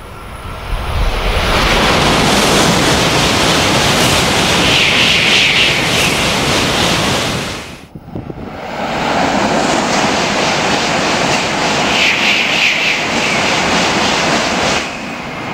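Two N700-series Shinkansen trains passing through a station at high speed, up to 300 km/h, each a loud rush of air and wheels with a sharper hiss at its loudest. The first builds about a second in and cuts off abruptly about halfway; the second follows at once and cuts off abruptly near the end.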